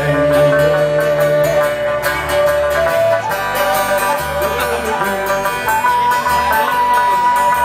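Live folk band playing an instrumental passage: plucked and strummed strings with a bass guitar over a fast even beat, and a melody of long held notes above them.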